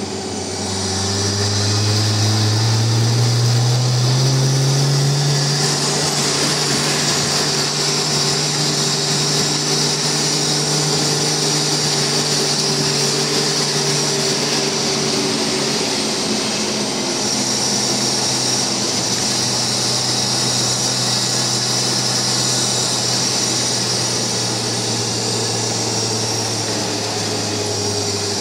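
Jeep engine running under way as the jeep drives along, its pitch rising over the first few seconds as it picks up speed, then holding fairly steady with a brief easing off about halfway through, over a steady hiss.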